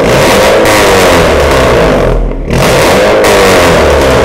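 Honda City Hatchback's engine revving through a newly fitted Sokudo aftermarket exhaust (replaced downpipe, centre pipe, front pipe and muffler), heard close to the twin tailpipes. It is loud, with two long revs and a brief drop between them about two seconds in.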